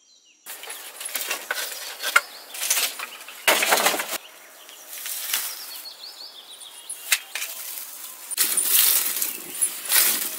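Dry straw and sticks rustling and crackling as they are pushed into a wood fire burning in a clay chulha, with sharp crackles and snaps throughout. The sound starts abruptly about half a second in.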